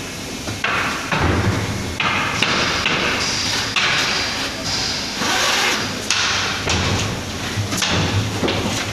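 Irregular hammer blows on steel, about eight over the stretch, each with a short bright ring: metalwork on railway coach body frames.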